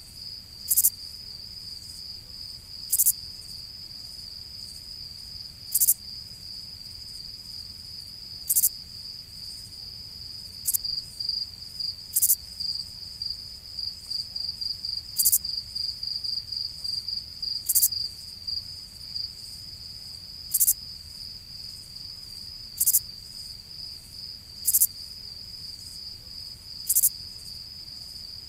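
Crickets chirping: a steady high-pitched trill, with a louder, sharper chirp standing out every two to three seconds and a run of quicker pulsing chirps in the middle.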